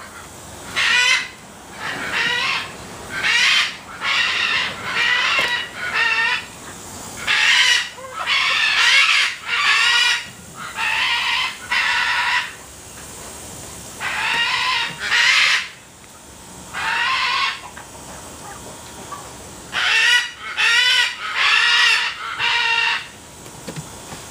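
Grey junglefowl calling: a long run of short, repeated calls, each under a second long. They come in groups of several with pauses of a second or two between the groups.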